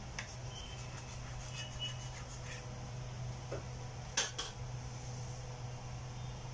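A knife cutting through soft cake and tapping lightly on a plastic cutting board, then a sharp double clatter about four seconds in as the metal knife is set down. A steady low hum runs underneath.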